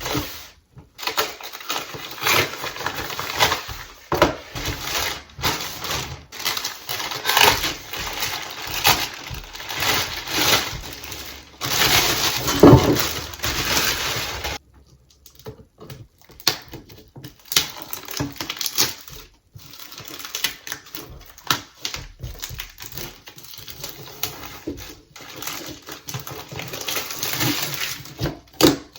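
Irregular rustling, scraping and clicking of computer parts and packaging being handled, loudest just past the middle, with a brief break a little after.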